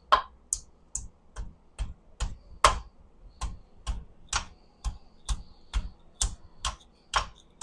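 Small hammer tapping steadily and lightly, about two strikes a second, knocking a stuck lump of melted valve-cover plastic loose from the engine.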